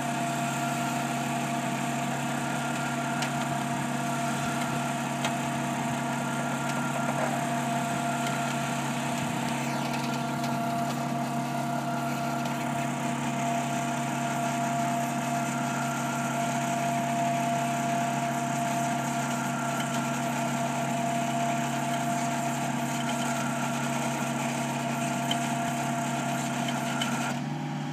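A tracked anchor-installation rig's engine runs steadily under load while its hydraulic rotary head screws a ground anchor into hard ground. The machine drone stays even throughout and eases slightly near the end.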